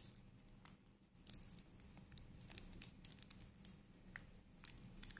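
Near silence, broken by faint irregular clicks and rustles as a steel-bracelet wristwatch is handled in cloth gloves: bracelet links shifting and fabric brushing. A faint low hum sits underneath.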